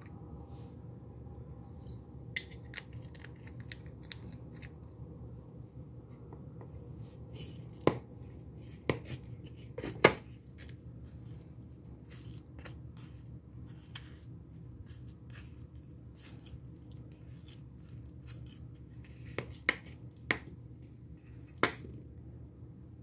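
Miniature metal and glass dishes and small utensils being handled, with scattered light clicks and taps and a few sharper knocks, three close together about eight to ten seconds in and three more near the end, over a steady low hum.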